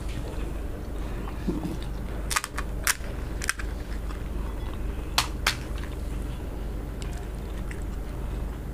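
Crisp fried puri (fuchka/panipuri) shells cracking as they are broken open with the fingers: several sharp snaps about two to three and a half seconds in, and two more about five seconds in.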